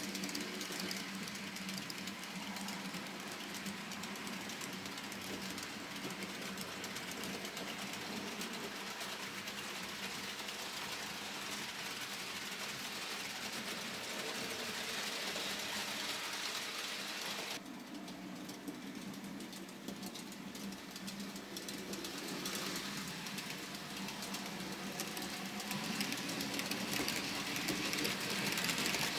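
N-scale model train running: the locomotive's small electric motor whirring steadily with a low hum as it hauls freight wagons along the track. The sound dips for a few seconds about two-thirds of the way through.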